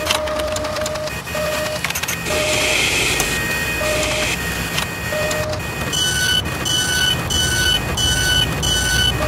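Machinery sound effects: a steady mechanical whirring and clatter, with a few short beeps at uneven intervals in the first half and a regular run of higher beeps, about two a second, in the second half.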